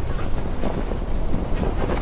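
Heavy wind buffeting the microphone: a steady low rumbling roar with no let-up.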